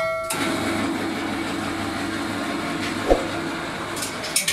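A steady mechanical hum over busy shop background noise, with a single sharp knock about three seconds in.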